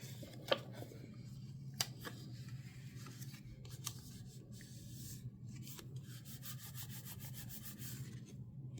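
Fingertips rubbing and pressing a paper sticker down into a journal's centre crease, with scattered light ticks and a quick run of rubbing strokes near the end.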